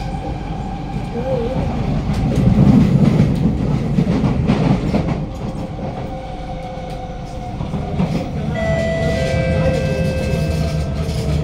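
Kawasaki–CRRC Qingdao Sifang C151B metro train running on its rails, heard inside the carriage. A steady rumble of wheels on track swells for a few seconds early on. From about eight seconds in, several steady whining tones join it, typical of the traction motors, and dip slightly near the end.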